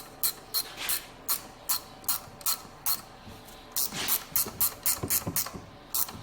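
A 13 mm ratcheting wrench clicking steadily, about three clicks a second, as it turns in an alternator mounting bolt. A brief scrape interrupts it just before the four-second mark, and then the clicking resumes a little faster.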